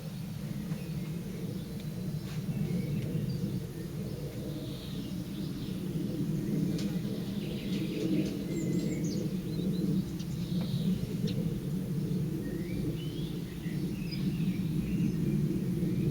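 Steady low outdoor rumble, with faint bird chirps and short calls every few seconds above it.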